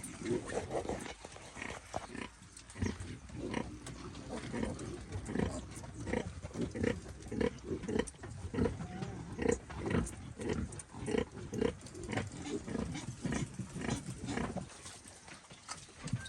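Pigs grunting, a steady run of short low grunts about two or three a second that dies down near the end.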